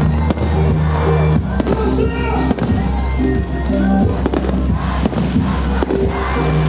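Aerial firework shells bursting with about a dozen sharp bangs at irregular intervals, over loud music with held notes and a sustained bass.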